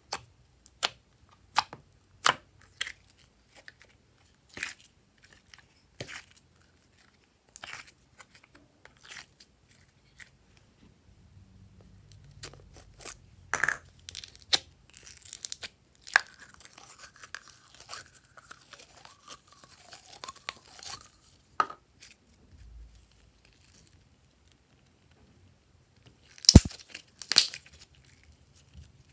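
Slime handled by hand: fingers poking into it, slime pulled from containers and stretched, making scattered sharp sticky clicks and pops. Near the end a run of louder pops comes as a piece of glitter slime is stretched.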